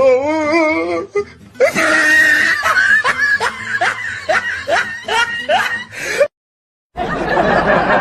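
A string of short comedy sound-effect clips. First comes a wobbling, warbling voice-like sound, then a music clip with quick repeated upward swoops that cuts off suddenly. After a brief silence a dense, noisy clip begins.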